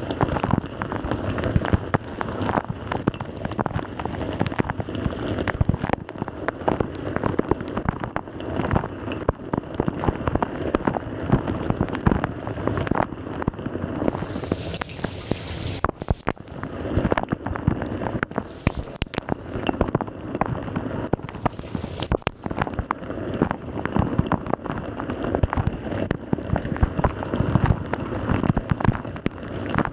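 Water spraying and pattering inside a Samsung dishwasher during a wash cycle: a dense, steady crackle of droplets striking close by, with a brief higher hiss about halfway through.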